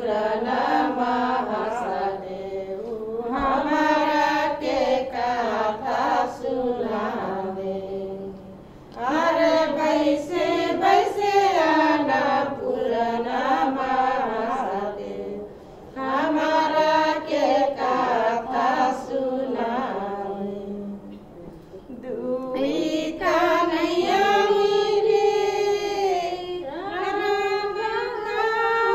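Tharu women singing a Jitiya festival song in long melodic phrases, broken by three short pauses.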